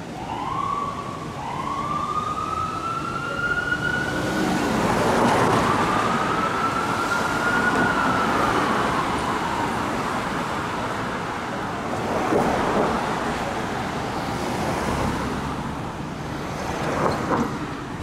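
Ambulance siren wailing in slow rising sweeps over city traffic noise, fading away after about nine seconds as the ambulance drives off.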